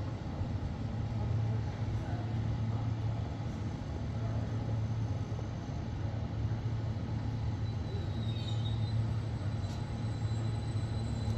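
Train running past with a steady rumble and a strong low hum. A thin, high wheel squeal sets in about eight seconds in.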